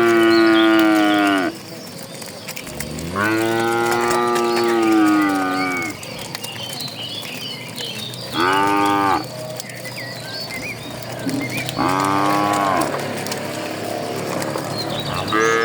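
Cattle mooing in a series of drawn-out calls. One moo ends about a second and a half in, a long one follows, then two shorter ones, and another begins right at the end.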